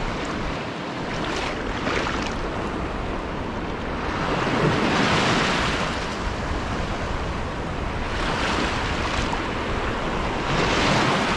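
Shallow sea surf washing in over a sandy beach, the wash swelling up three times, with wind noise on the microphone.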